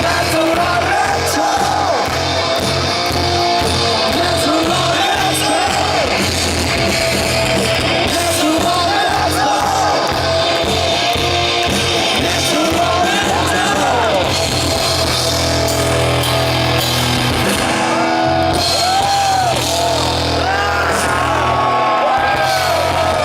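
Heavy metal band playing live through a concert PA, with distorted guitars, bass and drums under sung and shouted vocals.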